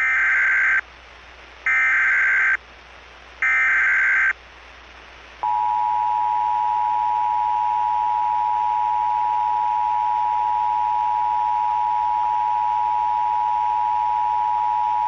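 Emergency Alert System tones. First come three short bursts of SAME header data tones, about a second apart. About five seconds in, the steady two-tone EAS attention signal starts and holds for about ten seconds.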